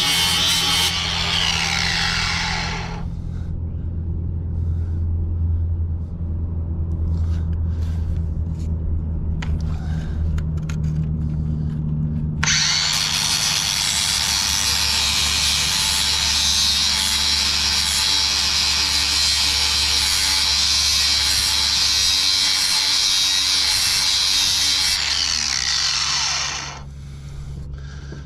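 Ryobi angle grinder with a flap disc grinding the edge of a steel mower blade to sharpen it; the flap disc keeps the blade from overheating. The grinding stops about a second in and the motor winds down with a falling whine, then after a pause with a few light knocks it starts again abruptly at about twelve seconds, grinds steadily, and winds down again near the end.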